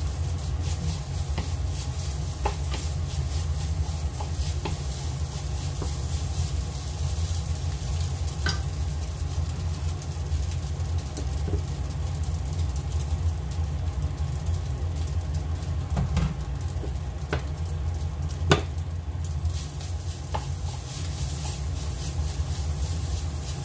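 Fried rice sizzling in a frying pan as it is stirred with a wooden spatula, with scattered clicks of the spatula on the pan and a steady low hum underneath. One sharp knock, the loudest sound, comes about three quarters of the way through.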